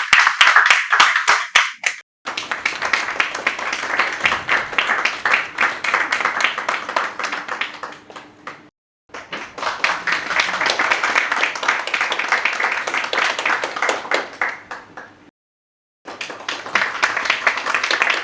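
Audience applause: many hands clapping in a dense, irregular patter. It comes as a sequence of separate clips of several seconds each. Each fades down and breaks into a brief dead silence about two, nine and fifteen seconds in before the clapping starts again.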